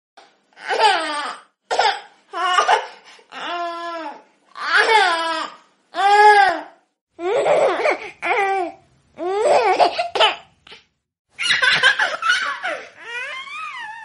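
A baby laughing in a string of separate high-pitched laughs, each a second or less long with a short silence between. Near the end comes a longer squealing laugh that falls in pitch.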